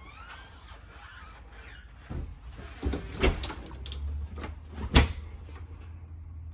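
Bathroom cabinet and shower doors in a travel trailer being opened and shut: a faint squeak near the start, then a series of knocks and clatters from about two seconds in, the loudest about five seconds in.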